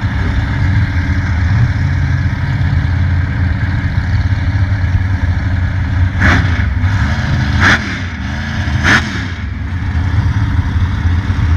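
Big mega truck engines idling with a steady low rumble at the start line, with three short bursts of revving about 6, 7.5 and 9 seconds in.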